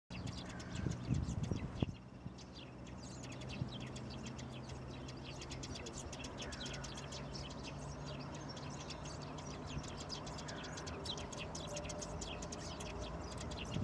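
Tree sparrows chirping, many short, rapid high chirps repeated throughout, over a steady low hum.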